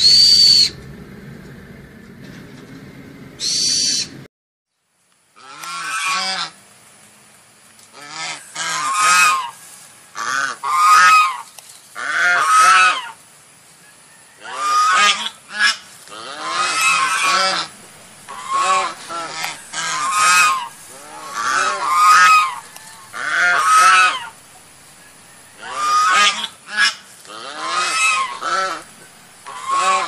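Large birds honking over and over, goose-like calls each under a second long, in a steady run that starts about five seconds in. Before that there is a low hum with two short high squeaks, then a moment of silence.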